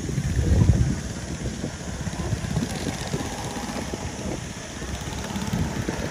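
Go-kart engines running as karts lap the track, a steady low engine drone that swells louder for a moment near the start.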